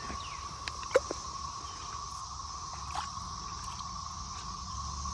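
Cicadas droning steadily, a continuous loud buzzing hum. A single sharp click sounds about a second in, with a fainter one near the 3-second mark.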